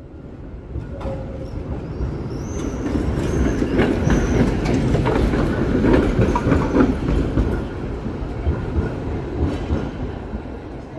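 Konstal 805Na two-car tram set passing on street track: rumble and wheel clatter over the rails build as it approaches, are loudest about six seconds in as it goes by, then fade as it pulls away. A few short high wheel squeals come between about two and four and a half seconds in.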